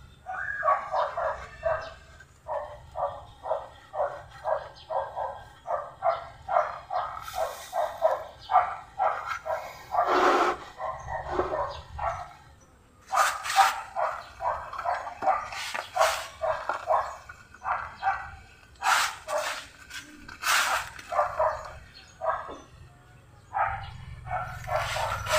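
A dog barking over and over, about two to three short barks a second, with a few louder, sharper barks among them.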